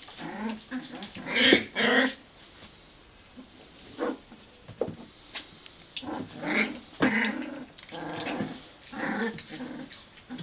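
Young puppies growling and yipping at each other as they play-fight, in several short bouts, the loudest about one and a half seconds in.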